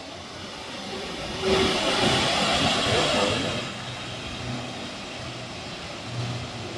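Steady rush of a waterfall, swelling louder for about two seconds near the middle.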